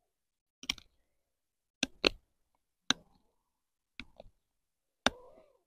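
J&V Cantero flat-ground bushcraft knife carving a wooden stick: about seven short, sharp cuts, irregularly spaced, some in quick pairs.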